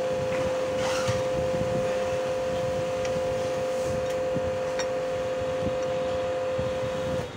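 Hyundai Creta car horn sounding continuously on one steady two-note tone, then cutting off suddenly near the end.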